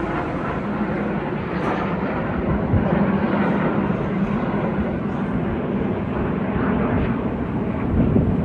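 A formation of small airplanes flying overhead, their engines making a steady, continuous drone.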